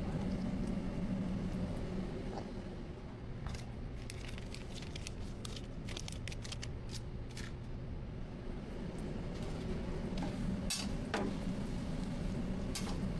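Steady low hum of a busy food stall with scattered sharp clinks and taps of utensils and dishes, a quick run of them in the middle and a few louder ones near the end.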